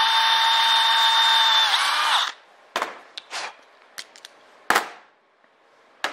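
A small power drill running steadily with a whine, its bit cleaning out the hole in a freshly welded steel standoff, then spinning down and stopping about two seconds in. Several sharp metal clicks and knocks follow as tools and parts are set down on the steel bench.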